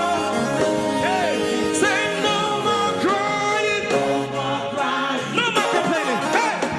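Gospel worship song: a singing voice with wavering, ornamented lines over sustained instrumental backing.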